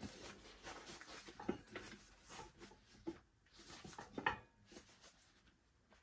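Hands working an inner tube into a dirt bike tire: rubber rustling and scraping, with a few sharp knocks about one and a half, three and four seconds in.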